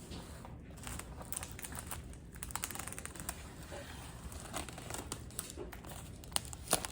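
Plastic shrink-wrap being torn and peeled off a boxed baseball card set, with irregular crinkling and crackling.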